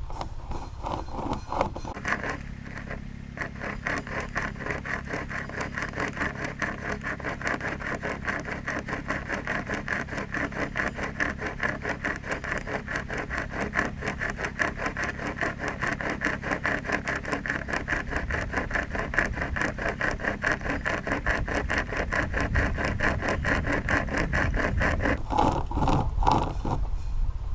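A SOG pocket chainsaw, a hand-pulled chainsaw chain, rasping through solid wood in a steady, rapid rhythm of back-and-forth strokes. The sawing starts about two seconds in and stops shortly before the end.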